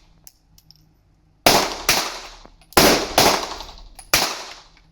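Five gunshots from a SIG Sauer firearm on a shooting range: two quick pairs about half a second apart, then a single shot, each ringing off in a short echo.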